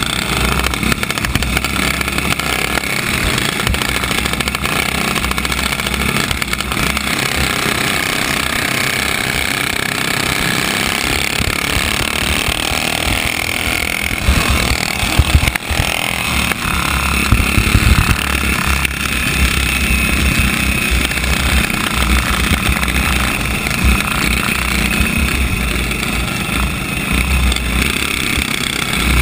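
Flathead four-stroke kart engine running flat out on a dirt oval, heard from on board amid the drone of the surrounding karts and wind noise. There are a few loud thumps and buffets about halfway through.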